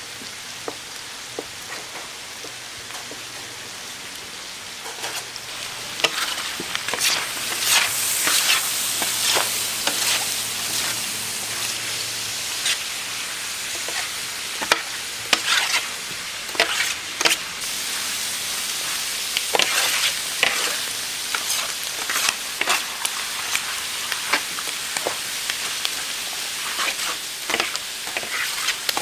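Pork offal frying on a large flat steel griddle: a steady sizzle, with a metal scraper repeatedly scraping and clacking against the griddle as the pile is stirred. The first few seconds are quieter, with light knife knocks on a wooden cutting board, before the sizzle and scraping grow louder about six seconds in.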